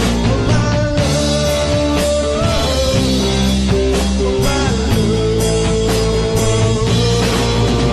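Rock song in an instrumental break: a held lead melody line with pitch bends over bass and drums.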